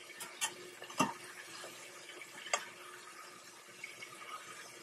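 Breaded chopped steak patties sizzling in hot oil in a steel frying pan, a steady low hiss. A few sharp clicks of metal tongs against the pan, the loudest about a second in.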